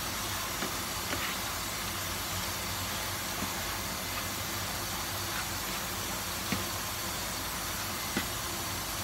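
Steady hiss of chicken, corn and bell pepper cooking in a saute pan, with a few light clicks of the spatula against the pan, the plainest about six and a half and eight seconds in.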